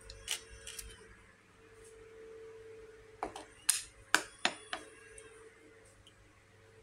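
A few sharp clicks and light knocks, the loudest four coming about three to four and a half seconds in, as a plastic tub of fish and cookware are handled and set down on a glass-top gas stove. A faint steady hum runs underneath.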